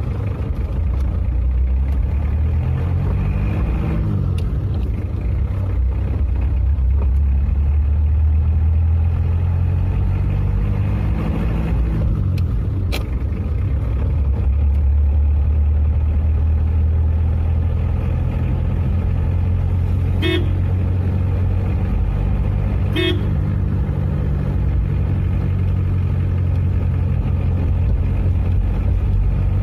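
Car engine heard from inside the cabin, rising in pitch as it accelerates and dropping back at each upshift, twice, from second up through fourth gear. About two-thirds of the way in the horn gives two short toots about three seconds apart.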